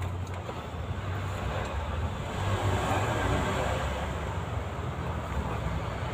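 A steady low vehicle rumble, with faint rustling of car wiring being handled under the dashboard.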